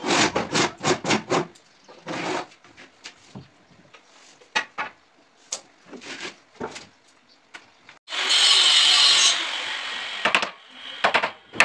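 A hand tool worked on plywood in quick back-and-forth strokes, about four or five a second, for the first second or so, then scattered knocks and scrapes. About eight seconds in, a louder steady noise lasts just over a second.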